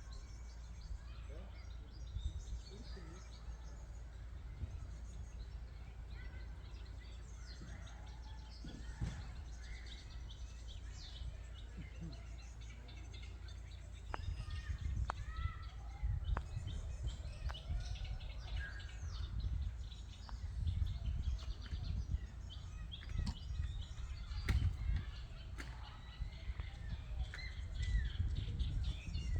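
Small birds chirping and calling in scattered short notes over a gusting low rumble of wind on the microphone, which grows stronger about halfway through.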